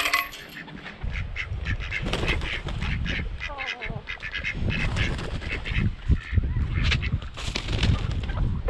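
A backyard flock of ducks and chickens calling: many short quacks and clucks in quick succession, one after another.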